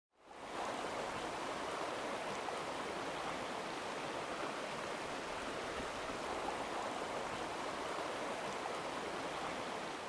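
A rocky valley stream's water rushing steadily over stones, fading in over the first half second.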